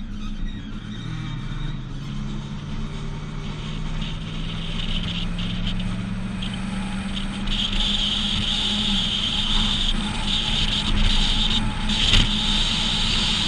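A Chevrolet Silverado's 5.3-litre V8 pulling a tow load up to highway speed, its low drone climbing steadily in pitch for several seconds before fading, with road rumble and a wind hiss that grows louder as speed builds.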